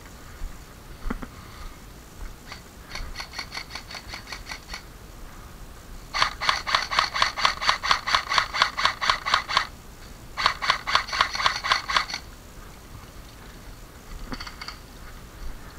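Rapid mechanical clicking in three runs of about five or six clicks a second, the middle run the longest and loudest, with a couple of single knocks before and a few faint clicks near the end.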